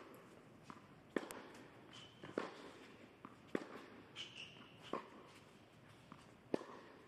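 Tennis rally: the ball is struck back and forth with rackets, a sharp hit about every second and a quarter, with short high squeaks between hits in an indoor hall.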